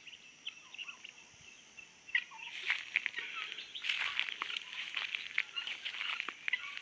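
A flock of farm poultry calling: many short, high calls overlapping, starting about two seconds in after a near-quiet opening.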